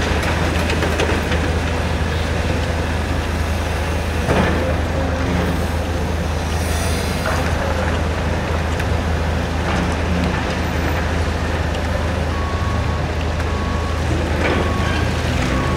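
Steady low drone of diesel engines from a Volvo EC220E excavator working and a Scania R580 truck standing by, with a few knocks and thuds as clay is dumped into the steel tipper trailer and the bucket digs the next load. A reversing beeper starts beeping evenly near the end.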